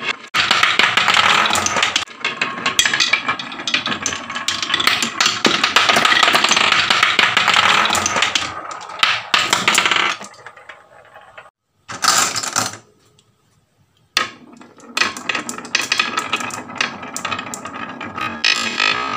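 Many marbles rolling and clattering down a wooden marble-run slope: a dense rattle of clicks and knocks on wood that breaks off twice near the middle.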